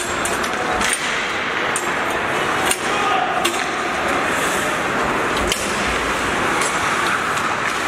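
Ice hockey play: sticks clacking sharply on the puck and ice several times, over a steady hiss of skates and rink noise.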